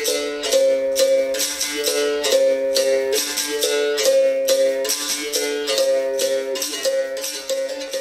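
Berimbau being played: the stick strikes the wire in a steady rhythm, and the coin pressed against and lifted from the wire switches it between two notes, with the gourd resonating under each strike.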